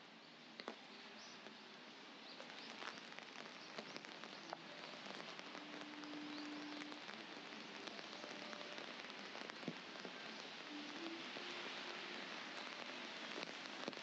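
Steady rain hissing on wet pavement, with scattered sharper drop taps and growing slightly louder. A faint low hum comes in briefly twice, about halfway through and again near the end.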